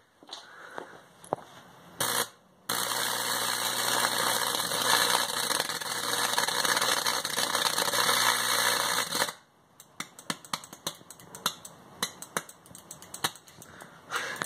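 High-voltage arc from a microwave oven transformer burning into a potato: a loud, hissing, crackling buzz over a steady electrical hum. It starts about two and a half seconds in, after a short burst, and cuts off suddenly about six seconds later. Scattered crackles and clicks follow.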